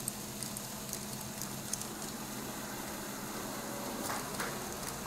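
Meccano model crawler tractor's voltage-driven engine and clutch running quietly: a faint, steady hum with light mechanical noise from the turning clutch plates.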